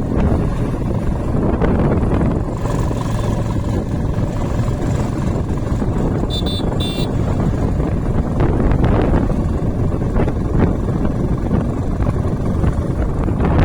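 Motorcycle on the move: engine running under heavy wind buffeting on the phone's microphone. Two short high beeps sound about six and seven seconds in.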